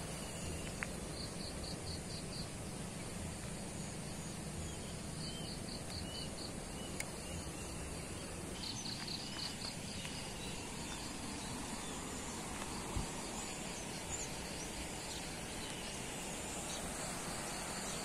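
Rural garden ambience: an insect, likely a cricket, chirps in short high pulsed trills that come back every few seconds over a steady background hiss. A few faint bird chirps sound in the first part.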